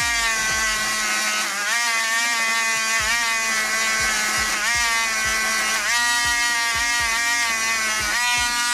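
Small handheld rotary tool with a wire-wheel brush running at high speed, a steady motor whine. Its pitch sags several times as the brush is pressed against a spinning brass model-train contact wheel, scrubbing off the dirt.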